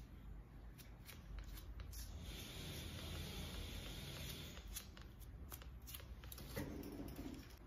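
Faint handling noise from hands working on toes fitted with foam toe separators: soft rubbing with scattered light clicks, over a steady low hum.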